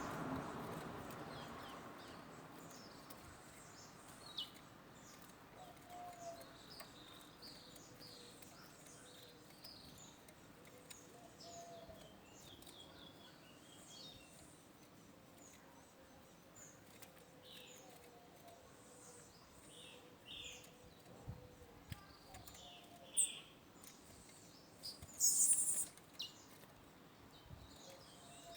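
Towa-towa finches giving faint, short high chirps and brief song phrases, scattered irregularly, with a louder call burst near the end.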